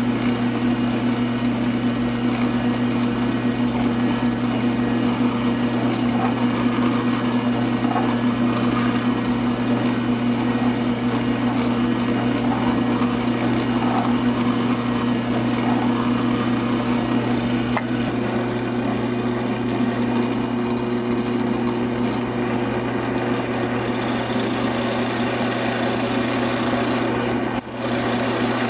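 Drill press motor running steadily while its bit bores into a hard maple block, a constant hum with the cutting noise over it. The sound shifts a little partway through and dips briefly near the end, as a larger bit starts cutting.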